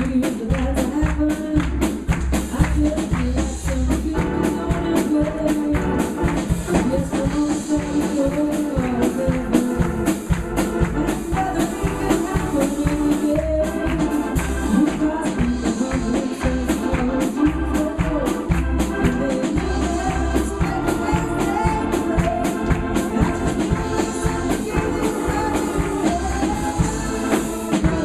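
Live church praise music: singing over instruments, with a tambourine shaking and a steady low beat.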